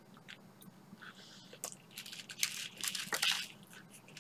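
Close-up crunching as a person bites into a crisp, broken-up crepe snack, the crunches loudest between about two and three and a half seconds in.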